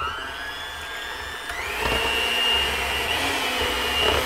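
Electric mixer beating egg whites toward stiff peaks: its motor whines up as it starts, then shifts to a higher speed about a second and a half in and runs steadily.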